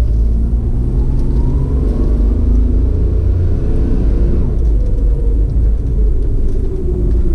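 A vehicle's engine and a heavy low rumble while driving along, the engine pitch rising as it speeds up about two seconds in.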